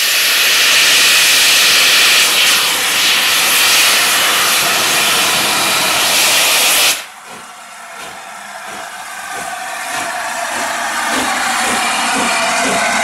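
Steam blasting from the cylinder drain cocks of LNER A4 4-6-2 No. 60007 Sir Nigel Gresley, a loud steady hiss that cuts off suddenly about seven seconds in. A quieter sound with a regular beat then builds over the last few seconds as the three-cylinder locomotive gets under way.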